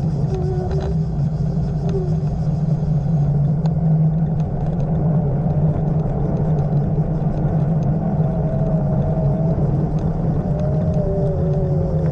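Steady rumble of a vehicle moving along a road, heard from on board, with a faint wavering whine in the second half.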